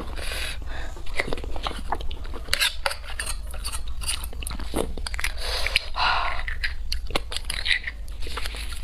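Close-miked eating sounds of spicy beef bone marrow: a metal spoon scraping marrow out of the bone, with many short wet mouth clicks, smacks and chewing, and a longer wet noise about six seconds in.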